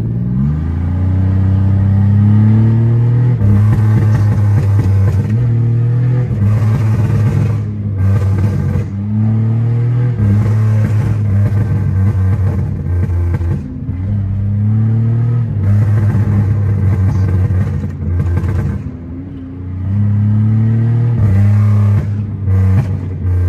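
Pontiac Grand Prix GT's 3.8-litre V6 accelerating hard, heard from inside the cabin: the engine note rises with the revs, drops back at each gear change and climbs again, repeatedly.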